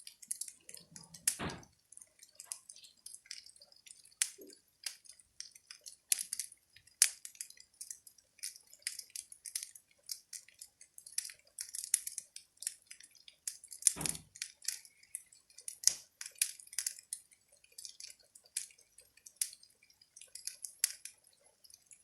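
Wood fire crackling in a fireplace: a continuous run of small sharp snaps, with two louder pops, one about a second and a half in and another about two-thirds of the way through.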